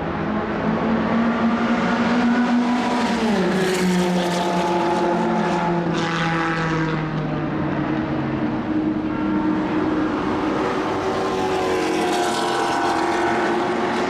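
1960s racing car engines running hard during track practice, several engine notes overlapping. One engine note falls in pitch about three seconds in.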